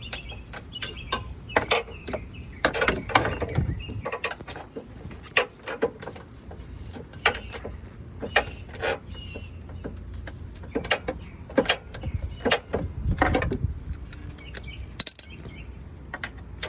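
Socket ratchet on an extension working a bolt loose: irregular ratcheting clicks and metal clinks and knocks of tools.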